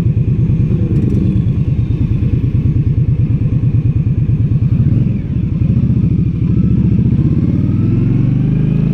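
2016 Indian Scout Sixty's liquid-cooled V-twin engine running under way with a steady pulsing exhaust beat. It dips briefly about five seconds in, then its note climbs as the revs rise.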